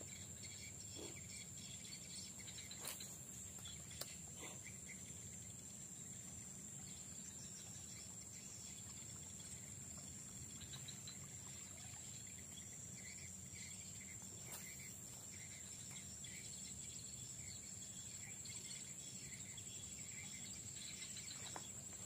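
Faint, steady high-pitched drone of insects, with a few light clicks, one about four seconds in.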